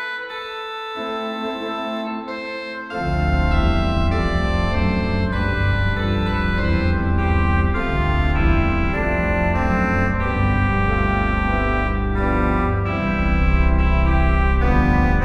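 Sampled pipe organ (Friesach organ sample set played through GrandOrgue software from a home-built two-manual console), playing stately chords. Deep bass notes come in about three seconds in, and the music grows louder and fuller from there.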